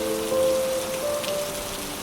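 Steady rain falling, with soft music of held notes that change every second or so layered over it.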